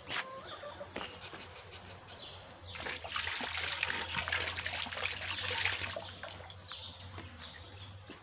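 Muscovy ducklings pecking and dabbling at feed in a trough: a busy, wet clicking and rustling with scattered ticks, densest from about three to six seconds in, over a low steady hum.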